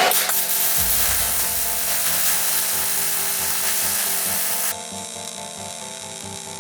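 A steady, harsh metalworking hiss, either welding or a power tool on steel, cuts off abruptly near the end. Under it runs background music with a steady beat.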